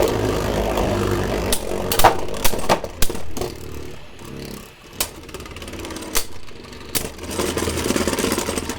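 Beyblade Burst spinning tops, a 3D-printed Hero Samuraizor and a Slash Valkyrie, whirring and clashing in a plastic stadium, with sharp clacks at each hit and a rattling whir near the end.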